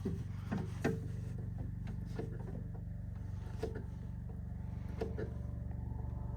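SCL 1000 mini skid steer engine running steadily at idle while its newly fitted throttle cable is tested, with a few light clicks and knocks. The engine note shifts slightly near the end.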